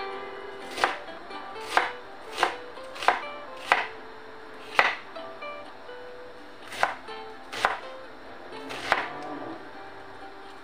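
Kitchen knife chopping a peeled onion on a wooden cutting board: about ten sharp knocks at an uneven pace, with a pause of nearly two seconds midway.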